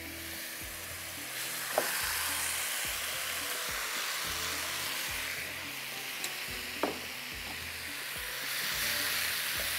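Boiled rice tipped into a wok of hot spiced stock, with a steady sizzling hiss and a couple of sharp knocks of a spoon against the pan.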